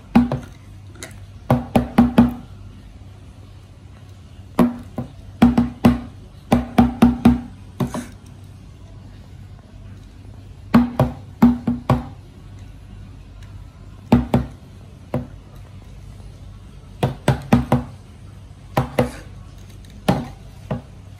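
A cat chattering: short bursts of two to five quick clicking sounds, with pauses of one to three seconds between the bursts.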